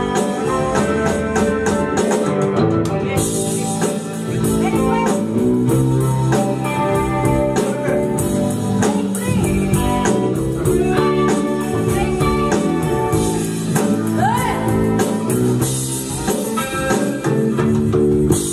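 Live band playing a song: a woman singing over electric guitar, bass guitar and a drum kit.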